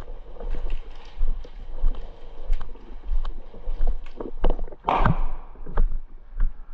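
Footsteps and rustling as a player moves over the ground, with a low rumble and short knocks of gear against the microphone, and a louder scuffing burst about five seconds in.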